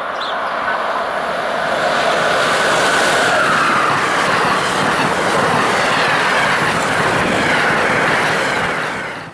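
Amtrak's eastbound Silver Meteor, a long-distance passenger train hauled by an electric locomotive, passing close by on the rails: a loud, steady rush of wheels and cars that builds up, holds, and fades near the end. A faint whine slides down in pitch about three seconds in.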